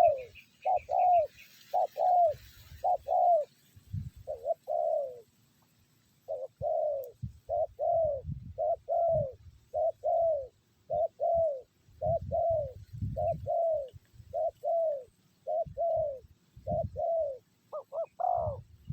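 Spotted dove cooing over and over in quick pairs of falling notes, with a short break about five seconds in. Low bumps sound underneath the calls.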